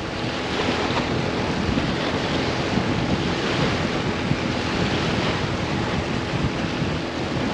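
Steady wind buffeting the microphone, with waves washing at the water's edge.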